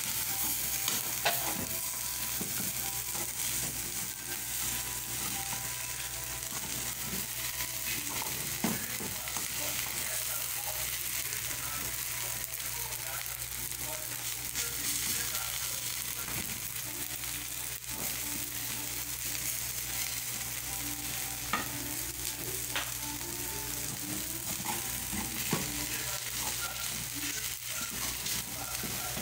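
Egg pan pie frying in oil in a frying pan, a steady sizzle, with a few sharp clicks and scrapes of a slotted metal spoon against the pan as it is worked loose where it stuck.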